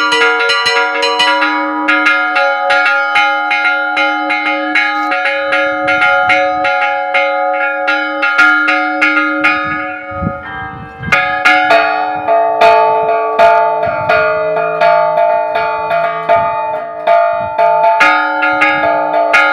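Church bells chimed by hand in a rapid repique, their clappers pulled by ropes against bells that hang still rather than swinging, several strokes a second over long-ringing tones. A little past halfway the strokes pause briefly, then resume on a different set of bell pitches.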